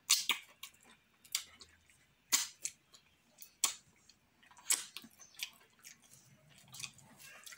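Wet mouth smacks and sucks from eating fufu with slimy okro and ogbono soup by hand and licking the fingers: about a dozen sharp, irregular smacks.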